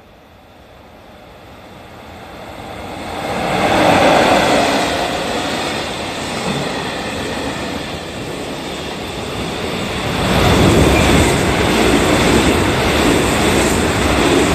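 An EF66 electric locomotive hauling a container freight train passes at speed. The rolling wheel noise builds to a peak about 4 s in, then holds steady as the container wagons run past. From about 10 s in, a 313 series electric train passes on the nearer track, crossing the freight train and making the noise louder still.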